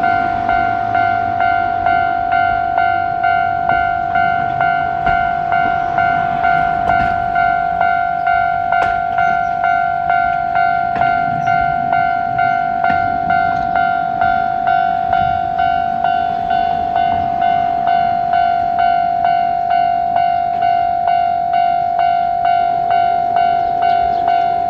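Japanese railway level-crossing warning bell ringing: an electronic clang repeating evenly, about three strikes every two seconds, while the crossing is closed for a passing cable car.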